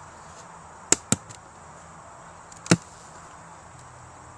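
Sharp cracks of a wooden beehive being worked open with a tool: two quick ones about a second in, then a louder single crack near the three-second mark.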